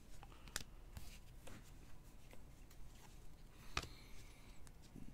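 Faint handling of a stack of trading cards: cards sliding and tapping against each other, with a few light clicks, the clearest a little before four seconds in.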